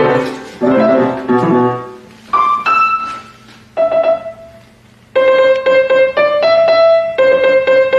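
Piano-style keyboard being played by hand: a jumble of chords in the first two seconds, a few single notes, then from about five seconds in a quick run of separate notes.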